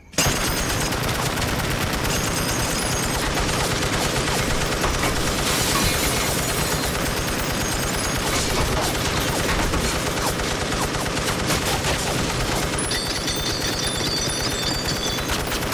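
Sustained automatic fire from a mounted machine gun: a long unbroken stream of rapid shots that does not let up.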